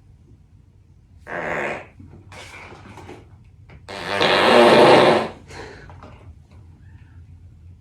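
Two farts: a short one about a second and a half in, then a louder, rougher one lasting about a second near the middle.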